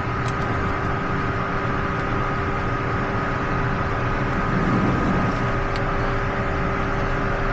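A steady machine drone with a constant hum, unchanging throughout.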